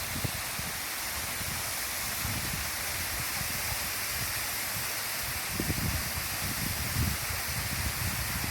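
Waterfall rushing with a steady, even roar of falling water. Irregular low rumbles of wind buffeting the microphone come in now and then, most around the middle of the stretch.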